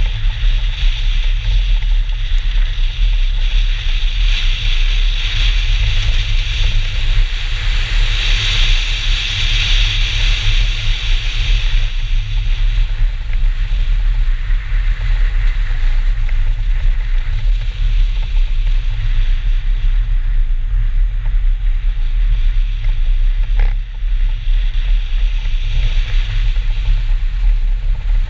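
BMW 320 race car driving hard on a snow-covered track: engine, tyre and snow noise under a loud, steady rumble of wind buffeting the camera's microphone on the outside of the car.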